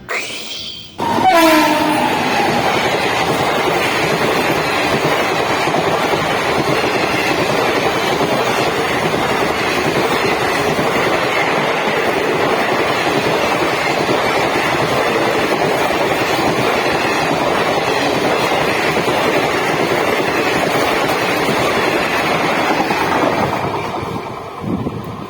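Express train passing at speed: a short horn blast about a second in, its pitch falling as the locomotive goes by, then the steady rumble and wheel-on-rail clatter of the coaches running past for about twenty seconds before fading away near the end.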